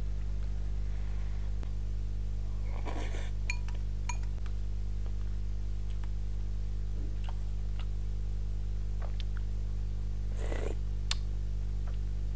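Eating sounds: a metal spoon and chopsticks clinking against a stainless steel pot of instant noodles, with two short slurps, about three seconds in and about ten seconds in. A steady low hum sits underneath.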